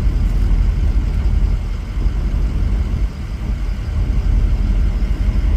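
Ford 6.0 Powerstroke V8 turbo-diesel idling steadily, a low, rough rumble.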